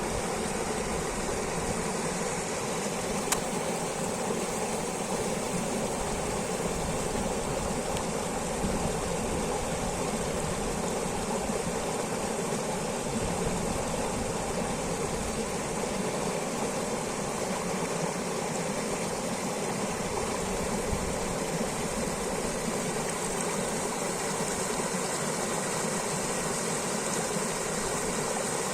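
Mountain river rushing, a steady, even rush of flowing water.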